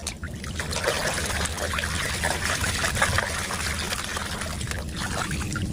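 Water pouring and trickling over a muddy plastic toy as it is washed, with many small splashes.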